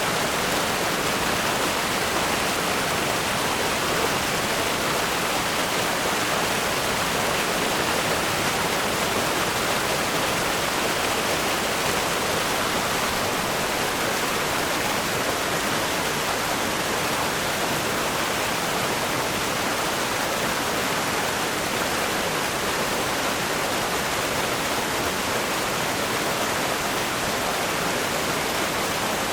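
River rapids rushing over rocks: a steady, dense roar of water.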